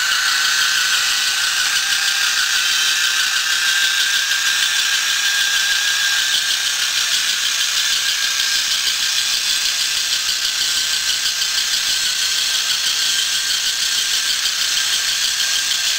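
Small battery-powered electric hobby motor driving a toy crawler tractor through a plastic worm gear and spur gear. It runs with a steady high-pitched gear whine and a fine rapid rattle.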